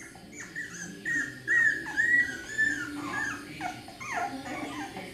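Beagle puppy whimpering: a string of short, high-pitched cries, many in a row, loudest about a second and a half to two seconds in.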